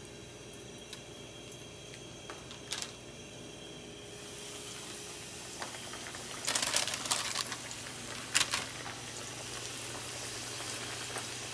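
Breaded chicken pieces going into hot canola oil, which bubbles and sizzles. The sizzle swells from about four seconds in, with louder spells of crackling as pieces go in, from about six to eight and a half seconds.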